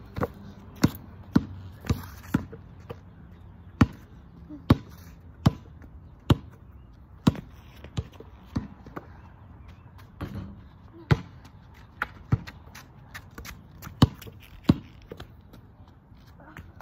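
A rubber basketball bouncing on an asphalt driveway as it is dribbled: a long run of sharp thuds, about one a second and sometimes two close together, with a few short pauses.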